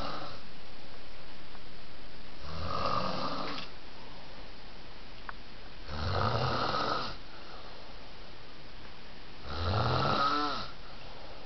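Snoring in slow, regular breaths: one snore about every three and a half seconds, each lasting about a second.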